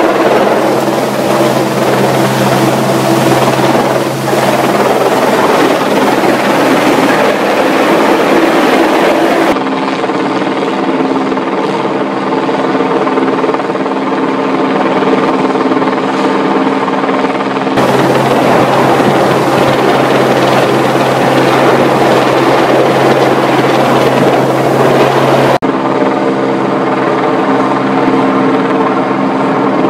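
Helicopter hovering overhead with a steady turbine and rotor drone. It alternates, at cuts about 10, 18 and 26 seconds in, between a loud rushing noise that swamps the drone and a cleaner steady hum with several held tones.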